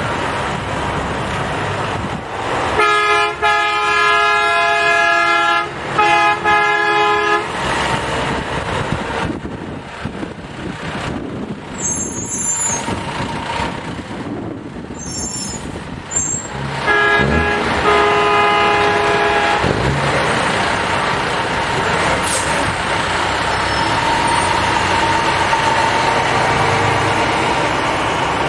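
Semi-truck air horns sounding a chord of several notes, one long blast about three seconds in with a short break partway, and another a few seconds past the middle. Truck engines run steadily underneath.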